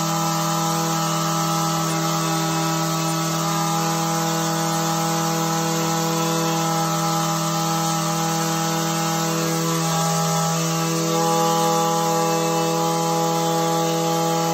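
Echo SRM-225 string trimmer's small two-stroke engine running at a steady speed, warming up after a cold start.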